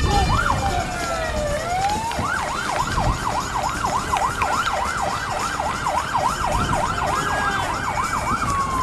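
Electronic siren: slow rising and falling wails for about two seconds, then a fast yelp of about four rises and falls a second, ending in a falling glide near the end.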